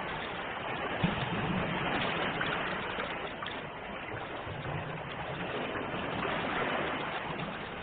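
Sea waves washing in steady surf, the wash swelling and easing slowly, with one brief click about a second in.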